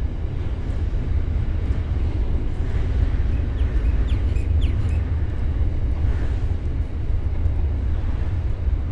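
Double-stacked container freight train rolling slowly past, a steady low rumble of wagons on the rails, with a few brief high squeaks about four to five seconds in.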